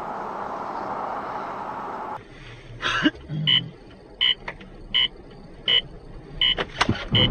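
Steady road and cabin noise inside a car that cuts off about two seconds in. It is followed by an electronic beep inside a car, repeating about every 0.7 seconds, with a few short knocks in between.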